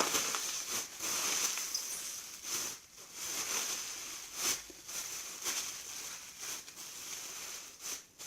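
Plastic bag crinkling and rustling in a run of irregular short crackles as it is handled and cut into shape.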